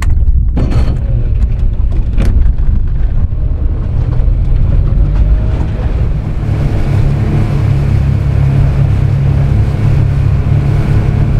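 Honda 40 hp four-stroke outboard driving the boat under way, a steady low engine rumble mixed with wind buffeting the microphone and water rushing past. Two sharp knocks sound about half a second and two seconds in, and the engine and wind grow louder about six seconds in as the boat runs faster.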